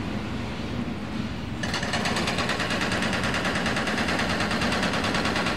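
A fast, even rattle starts suddenly about a second and a half in and runs on steadily over a background hiss.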